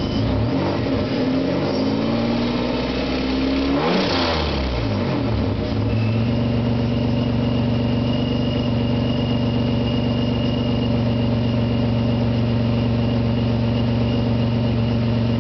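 Supercharged 1997 Nissan Maxima's 3.0-litre V6 revved once, climbing to a peak about four seconds in and falling back, then idling steadily with a thin high whine over it. The exhaust has a leak after the catalytic converter.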